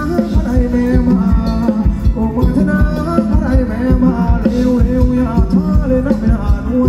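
Thai ramwong dance music from a band over a sound system: a steady fast drum beat under a stepping melody.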